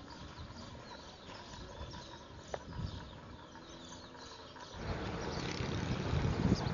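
Faint outdoor ambience with one brief chirp, then wind buffeting the camcorder's microphone from about five seconds in, a louder uneven low rumble.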